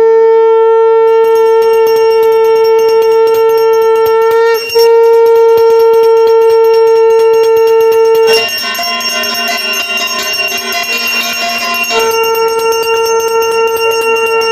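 Conch shell (shankha) blown in long, loud held notes for the puja, with a short break about four seconds in. From about eight to twelve seconds in, the note turns rougher and lower while a brass hand bell rings, then the steady conch note comes back.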